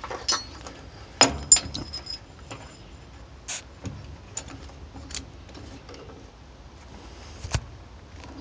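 Metal clinks and ticks from a C-clamp hold-down being tightened into a milling machine table's T-slot, its screw handle turned by hand. Two sharp, ringing clinks come a little over a second in, followed by scattered lighter ticks.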